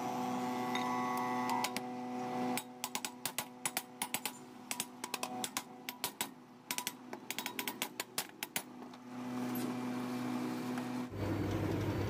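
Many light metallic clicks and taps, from about two and a half seconds in to about nine seconds, as the domed steel lid of a refrigerator compressor is seated back on its shell, over a steady electrical hum that is plain before and after the tapping.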